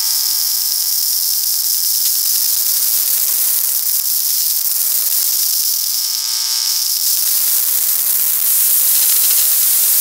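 A Linksys Wi-Fi router's radio emissions, made audible by a Heliognosis AR1 VLF receiver: a loud, steady hiss of digital hash that sounds like a pressure washer, cutting in abruptly. Underneath it a buzzy mains hum from the 60 Hz power grid fades in and out.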